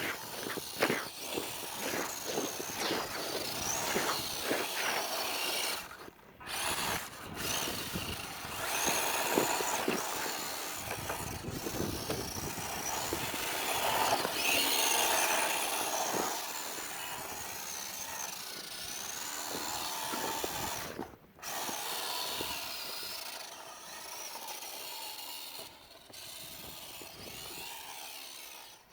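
Small electric motor of a WPL D12 RC drift truck whining and rising and falling in pitch as the throttle changes, with tyre scrubbing and clicks. The motor sound cuts out briefly twice.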